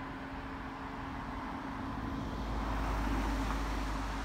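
Steady outdoor background rumble with a constant low hum, swelling somewhat louder and deeper about halfway through.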